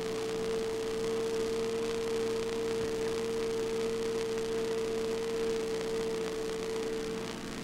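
A steady hum: one constant mid-pitched tone, with fainter lower tones and hiss beneath it.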